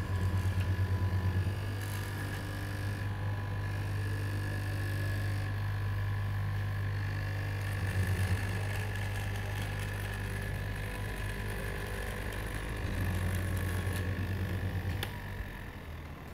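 Electric straight-knife cloth cutting machine running, its motor humming steadily while the vertical blade cuts down through a tall stack of fabric layers, with louder stretches now and then. The hum drops away near the end.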